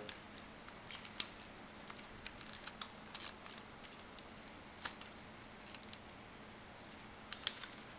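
Faint, scattered clicks and taps of a circuit board and its plastic fuse-box housing being handled and fitted together, over a faint steady hum.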